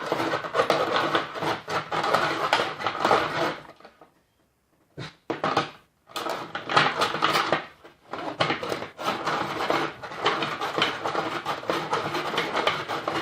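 Toy Snoopy snow cone machine being hand-cranked, its blade grinding an ice cube in a fast run of crunching clicks and rattles while the machine shakes. It stops for about two seconds near four seconds in, then starts again.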